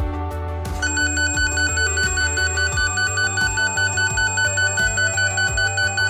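Cable tracer probe of a NOYAFA NF-8508 beeping rapidly, about four high electronic beeps a second, starting about a second in, over background music. The beeping is the probe's signal that it has found the traced network cable.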